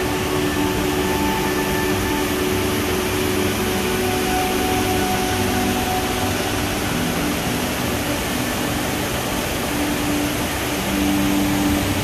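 Steady rushing roar of a large cascade waterfall close by, heavy water pouring over a wide limestone ledge into a gorge.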